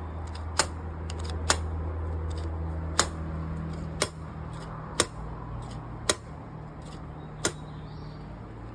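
Sharp clicks, about one a second, from a Kawasaki KX125's throttle being worked by hand, the carburettor slide snapping shut each time, over a steady low hum.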